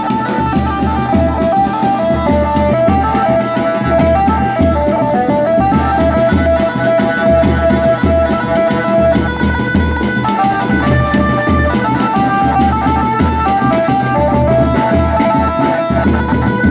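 Adivasi wedding band (band baja) playing a ringtone tune: a melody of short, bright notes over a steady, heavy drum beat with deep bass thumps.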